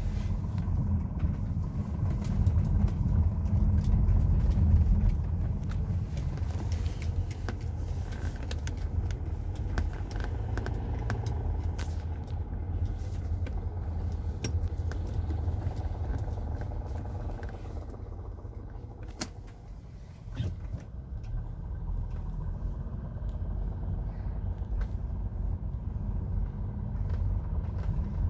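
Nissan Qashqai 2.0 petrol running with a steady low rumble, over which come irregular sharp clicks and knocks, a couple of sharper ones near the middle when the rumble briefly eases. The knocking and clicking is a fault whose cause the owner cannot find.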